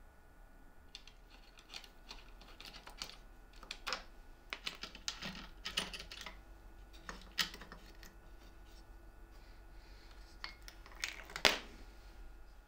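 Plywood jig parts being handled and fitted together by hand: an irregular scatter of light wooden clicks and knocks, the loudest knock near the end.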